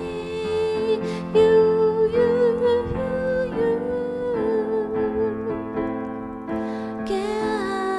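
A song: a singer holding long, slightly wavering notes over electric piano chords.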